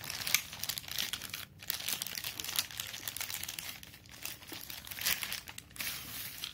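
Clear plastic packaging bag crinkling and rustling as it is handled and pulled off a hair straightener, in irregular crackly bursts with a couple of brief pauses.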